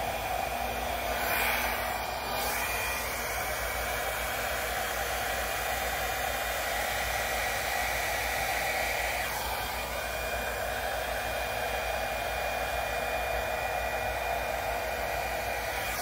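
Small handheld hair dryer running steadily, a constant rush of air with a faint high whine, blowing wet acrylic paint across a canvas.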